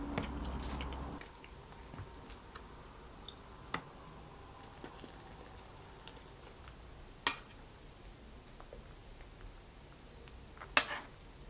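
Metal chopsticks clinking against a stainless steel pan as fried chicken is picked up, with soft eating sounds between. Three sharp clinks a few seconds apart stand out, the last the loudest.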